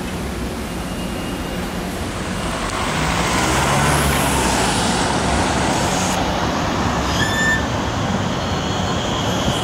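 Articulated electric tram running close by along its street track, its rolling noise swelling about three seconds in as it comes alongside. A thin high whine begins near the end.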